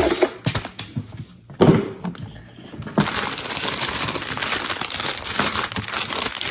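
Plastic LEGO parts bags crinkling and rustling as hands handle them, with a few light knocks in the first seconds; the crinkling turns steady and dense from about three seconds in.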